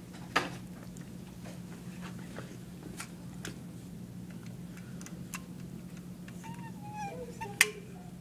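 Steady low hum of room noise with a few isolated sharp clicks, the loudest about half a second in and another near the end, and a brief wavering squeak just before that last click.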